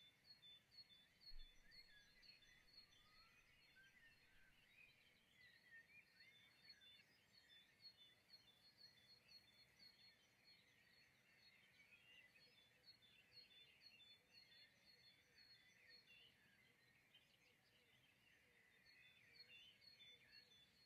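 Near silence with faint birdsong: small birds chirping and trilling in the background, dropping out for a couple of seconds near the end before resuming.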